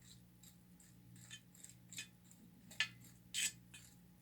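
Dry mortar mix being spread across the bottom of a baking-pan mold: a run of short scraping strokes that grow louder, the loudest two about three seconds in.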